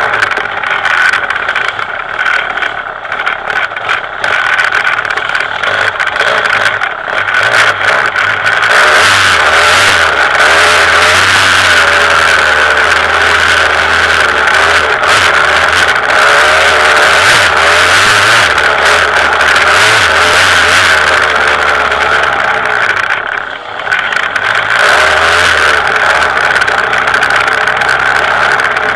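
KTM 200 EXC two-stroke single-cylinder dirt bike engine running hard on a trail ride, its pitch rising and falling with the throttle, with knocks from the bike bouncing over the ground. The throttle closes briefly about 23 seconds in before the engine pulls again.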